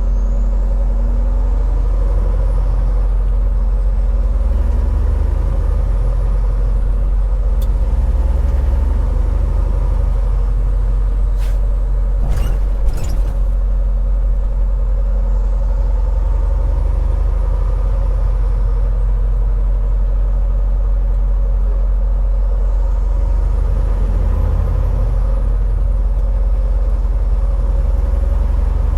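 Semi truck running down the road: a steady engine drone and rumble, with a few brief clicks about halfway through.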